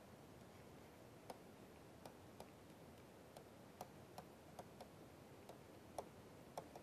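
Faint, irregular clicks of a pen stylus tapping on a tablet screen while writing, over near-silent room tone. About a dozen taps come at uneven intervals, the loudest near the end.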